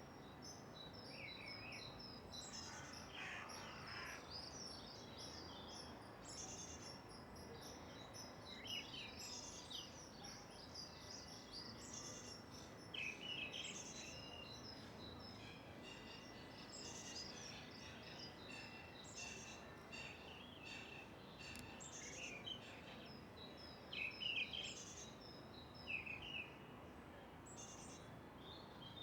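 Several small birds chirping and twittering over a steady low hum of distant background noise in a park, with a few louder chirps near the end.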